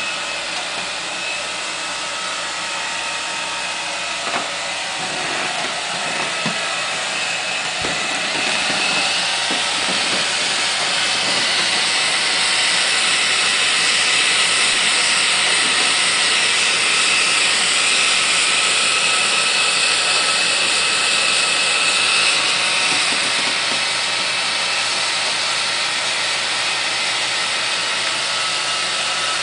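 Handheld hair dryer blowing steadily with a rushing hiss and a faint whine, growing louder about a third of the way through and easing a little near the end.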